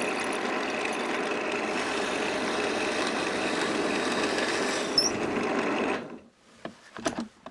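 Drill press running a 6 mm twist bit into the end grain of a pine dowel, a steady whirring cut that stops abruptly about six seconds in. A few light knocks follow near the end. The bit is wandering in the hard grain and drilling a crooked hole.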